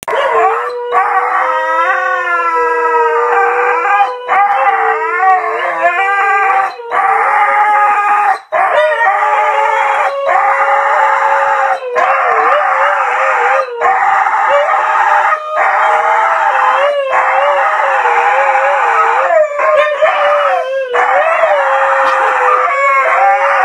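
Huskies howling: long, wavering howls held around one pitch, broken by short pauses every second or two. Near the start two howls overlap at different pitches.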